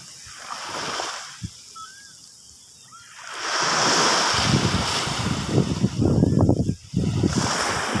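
Small waves breaking on a sandy beach and washing up the shore: a soft hiss of foam about a second in, a lull, then a louder wave breaking about three and a half seconds in, its rush of surf lasting several seconds. Low gusts of wind rumble on the microphone during the louder stretch.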